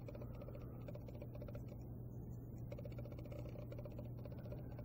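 Faint, rapid crackling of a dry Virginia flake pipe tobacco being peeled apart and handled between fingers, over a steady low hum. The crackling stops briefly about two seconds in, then resumes.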